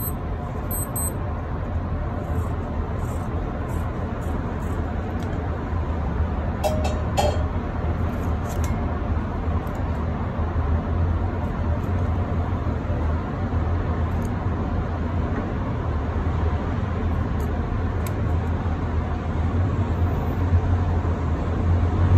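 Steady low rumble of a moving vehicle, with a brief higher-pitched sound about seven seconds in.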